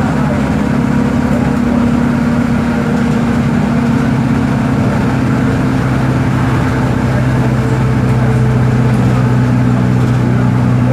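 Volkswagen 17.230 OD bus's diesel engine running steadily with a constant low drone; its pitch shifts slightly about halfway through.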